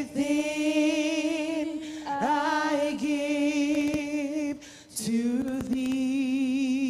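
A woman's solo voice singing a slow worship song unaccompanied into a microphone. She holds three long notes with vibrato, with short breaths about two seconds in and about four and a half seconds in.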